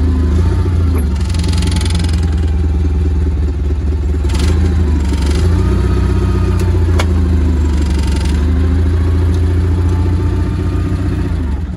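Cat forklift's engine running steadily with a low hum as the forklift drives forward, with short spells of hissing and a sharp click about seven seconds in.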